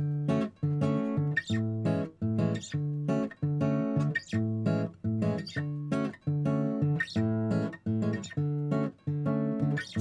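Background music: acoustic guitar strummed in a steady rhythm, about two strums a second.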